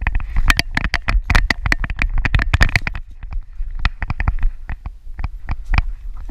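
Handling noise from a GoPro strapped to a dog's harness as the dog moves: rapid clicks and knocks of the camera and mount jostling, over a low rumble of fur and straps rubbing on the housing. The clicks come thick and fast for about three seconds, then thin out to scattered knocks.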